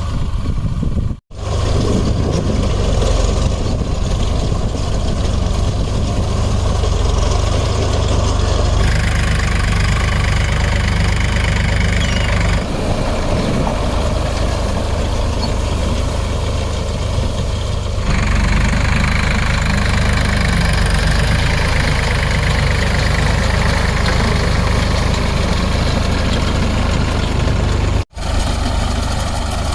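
Solis 4515 4WD tractor's diesel engine running steadily while powering a baler. The sound drops out briefly twice, and its tone shifts abruptly a few times.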